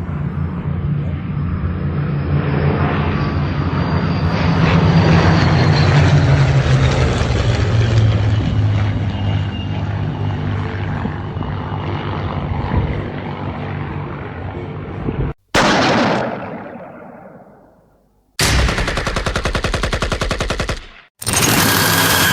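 A run of battlefield sound effects. First comes rapid gunfire over a low drone that slowly falls in pitch, and it cuts off suddenly. Then a single sudden blast fades away over about two seconds, followed by a few seconds of rapid, evenly spaced machine-gun fire, and near the end another dense burst begins.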